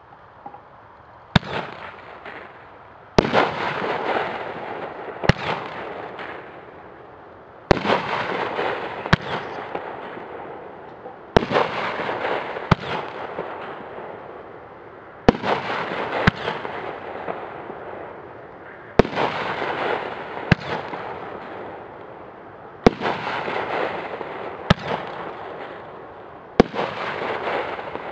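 Pyro Planet White Knight 10-shot 500-gram consumer fireworks cake firing its shots in sequence. A sharp bang comes about every four seconds, about seven times, and each is followed by a few seconds of crackling that fades away, with a smaller report between the bangs.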